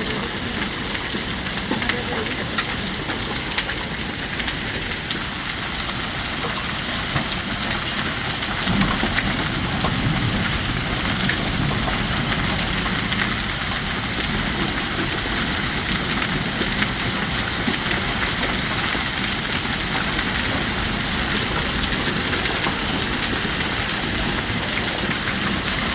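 Heavy rain mixed with hail pouring down: a dense, steady hiss of rain with many sharp clicks of hailstones striking.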